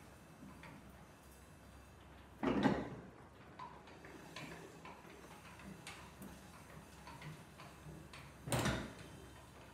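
Roller printing press with its bed moving under the steel roller: faint mechanical ticking, with two short louder knocks, about two and a half seconds in and again near the end.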